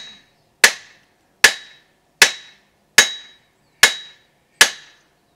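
Metal-on-metal blows: a hammer striking the back of an axe head, six evenly spaced strikes about 0.8 s apart, each with a short bright ring. The blows are held back so as not to break the axe.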